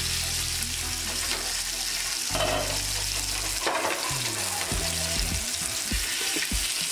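Masala-coated fish pieces shallow-frying in oil on a flat tawa with a steady sizzle. A spatula and then a fork scrape and knock against the pan a few times as the pieces are turned.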